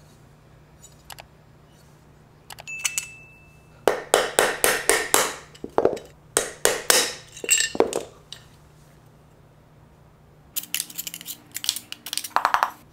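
Steel pick tool prying and scraping against an aluminium LED module housing, a run of sharp metallic scrapes and clicks a few seconds in. Near the end, a shorter run of scraping as a scalpel scrapes old thermal paste off the metal.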